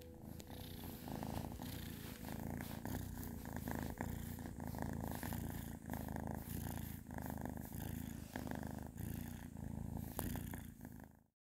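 Ragdoll kitten purring while being stroked on the head, a steady rumble that pulses with each breath and stops abruptly near the end.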